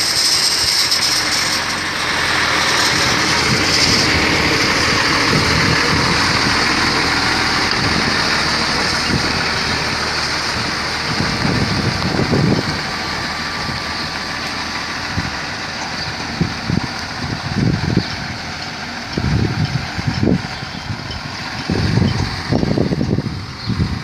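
Diesel engine of a trailerless Tata truck tractor unit running as the truck pulls away and drives off, growing fainter as it moves away. From about halfway through, gusts of wind buffet the microphone.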